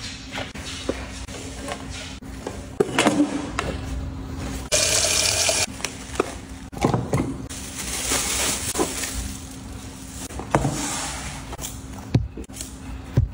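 Kitchen handling sounds: kitchen paper and a plastic produce bag crinkling and items set down with light knocks on a stone counter, with about a second of water pouring into a glass jar around five seconds in. Near the end, sharper knocks as oranges are lifted out of a cardboard box.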